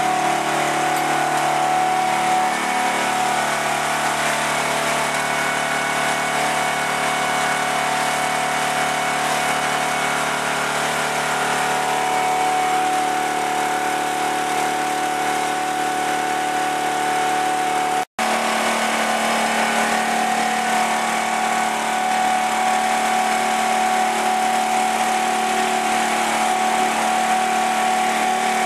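Homemade firewood processor's engine running steadily, with a steady whine over it. The sound drops out for an instant about two-thirds of the way through.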